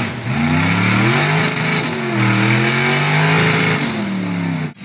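Mud-bog truck's engine revving hard in the mud pit, its pitch climbing and falling two or three times and easing down near the end.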